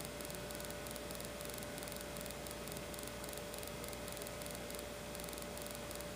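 Steady hiss and hum of a VHS tape playing back a blank stretch, with a faint steady whine and a soft high hiss pulsing about twice a second.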